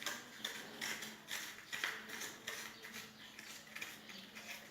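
Small kitchen blade scraping and scooping out the inside of a raw onion: a run of short, crisp scrapes, about three a second, as the onion is hollowed out.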